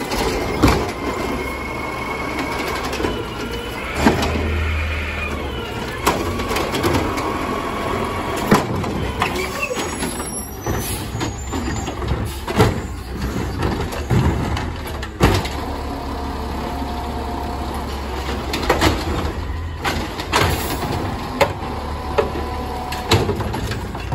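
Natural-gas automated side-loader garbage truck working its route: the engine runs steadily while the hydraulic arm grabs, lifts and dumps carts, with repeated sharp bangs and clatters of carts against the hopper every few seconds.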